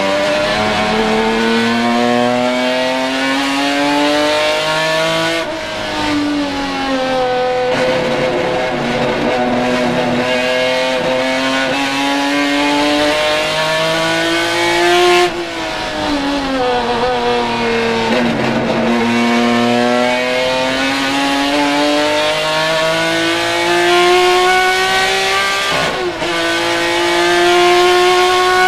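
Naturally aspirated Ford-Cosworth GAA V6 of a Ford Capri RS 3100 touring car at full racing speed, heard from inside the cockpit. It climbs through the gears with upshifts about five and a half and seven and a half seconds in. Its note falls as the car slows for a chicane about fifteen seconds in, then it rises again, with another upshift near the end.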